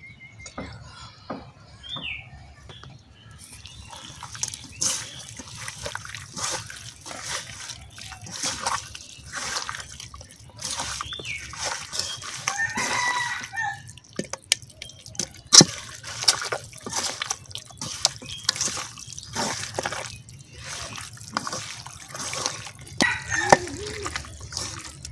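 Bare hand kneading raw beef with sliced onions, spice pastes and oil in a metal karahi: wet, sticky squelching in quick irregular bursts, starting about three seconds in. One sharp knock against the pan about halfway through is the loudest sound.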